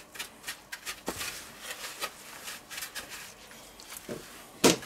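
A meatball being rolled by hand in dry panko breadcrumbs in a metal tray: irregular soft crunching and rustling of the crumbs, with one louder knock near the end.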